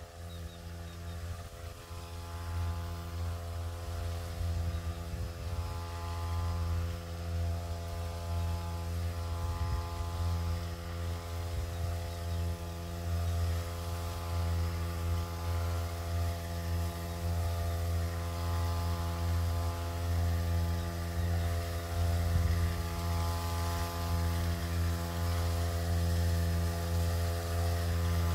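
Motorized backpack crop sprayer's small engine running steadily at a constant speed, gradually growing louder as the sprayer comes closer.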